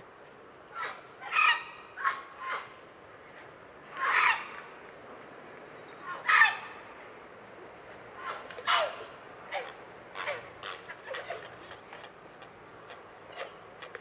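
Grey heron giving a series of short, croaking calls, the loudest four about two seconds apart, followed by quicker, fainter calls in the second half.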